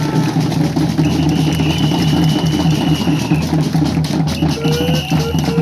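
Drums beaten in a steady, fast, unbroken rhythm. A long held tone sounds over them, followed by a rising tone near the end.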